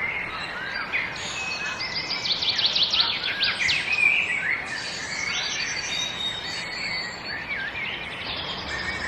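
Several songbirds singing over a steady background hiss of nature ambience, with many overlapping chirps, fast trills and short whistled glides.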